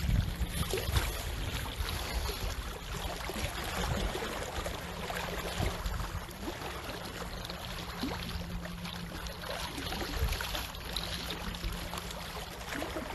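Seawater splashing and washing, a steady rushing noise with a low rumble underneath.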